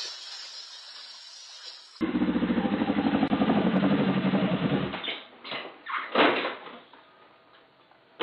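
Water splashing and churning, then a sport motorcycle engine running loudly in a garage with a steady pulse. The engine cuts out about 5 s in, and a few crashes follow as the bike topples onto its side, the loudest just after 6 s.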